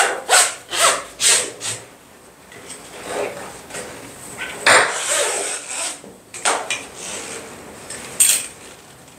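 Nylon harness webbing being pulled and worked through a metal buckle. About five quick pulls come in the first two seconds, then scattered rubs and knocks of webbing and metal hardware.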